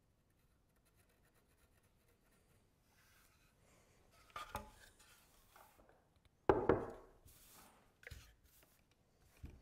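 Wooden parts of a small rocking horse being handled on a workbench: a few separate knocks of wood on wood with some rubbing between them. The loudest is a single thump about two-thirds of the way in.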